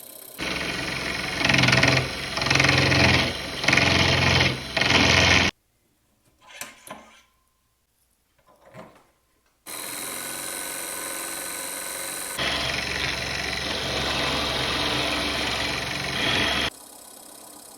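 Wood lathe turning a wooden pen blank, running with four louder bursts about a second apart as the turning tool cuts the wood. After a few seconds of near silence with a couple of faint clicks, the lathe runs steadily again, gets louder partway through, and drops to a faint hum near the end.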